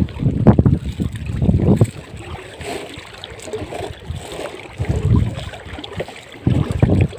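Wind buffeting the microphone in gusts, with rustling and knocks as the camera is handled. It is quieter through the middle and gusts up again near the end.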